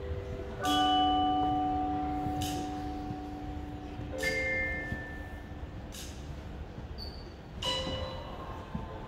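School drumline's front ensemble playing a slow, sparse passage: mallet-percussion chords struck three times and left to ring out, with a sharp high tick about every two seconds.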